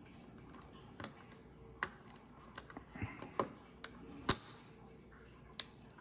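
Irregular sharp clicks and taps of small plastic and metal cassette parts being handled and pressed into place while a spring clip is fitted into an Elcaset cassette shell. The loudest click comes a little past four seconds in.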